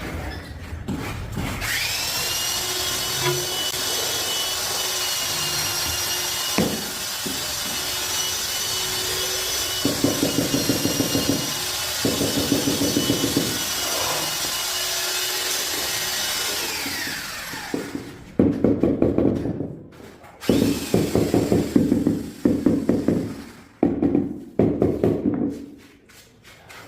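Electric power cutter spinning up with a rising whine, running steadily for about fifteen seconds, then winding down. After it, several loud bursts of rapid rattling taps.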